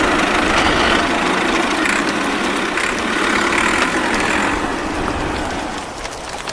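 A small motor running steadily, fading down about five seconds in.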